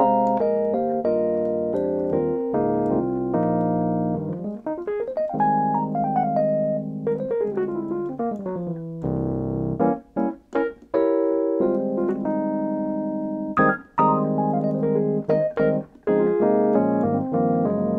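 Piano sound from an iPad app, played live from an 88-key hammer-action MIDI controller (Kurzweil KM88): held chords broken by quick runs up and down the keys, with a few brief pauses between phrases.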